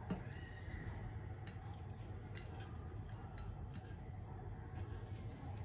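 Hands tossing and mixing sliced raw onions with dry spice powders on a plate. A faint, irregular rustle and crackle of the onion slices comes with a few light taps against the plate.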